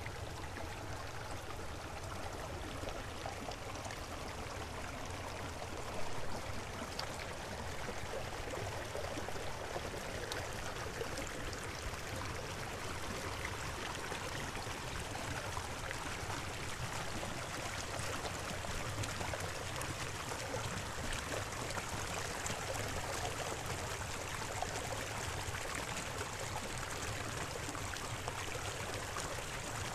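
Steady rushing of a stream of running water, with a brief louder spike about six seconds in.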